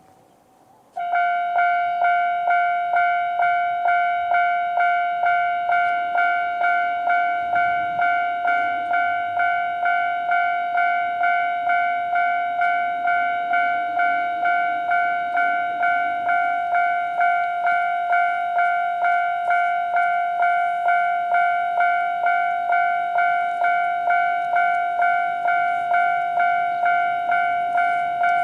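Japanese railway level-crossing alarm starting up about a second in and sounding its standard electronic warning. It is a rapid, evenly repeated ding at one steady pitch that signals the crossing is closing for an approaching train.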